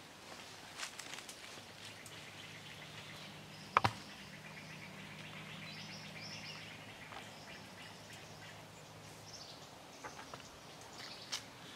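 Quiet outdoor ambience: scattered high chirps over a low steady hum, with a few small clicks and one sharp click about four seconds in, the loudest sound.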